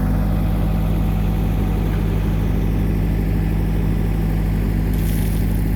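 New Holland LB75 backhoe's diesel engine running steadily while the backhoe digs. A brief hiss comes about five seconds in.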